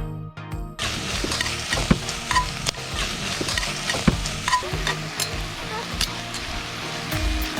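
Food sizzling as it fries in a pan, starting about a second in, with a few sharp clicks of a utensil against the pan as it is stirred. Background music runs underneath.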